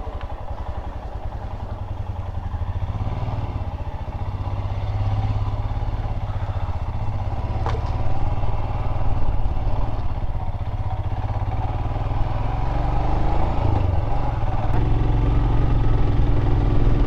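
Motorcycle engine running steadily with a low, even firing pulse, growing gradually louder over the stretch.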